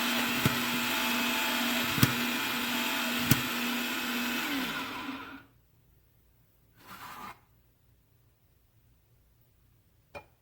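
Fellow Opus conical burr coffee grinder running with a steady motor hum and a sharp crack every second or so, then winding down and stopping about five seconds in. After that comes a brief rustle and, near the end, a single click.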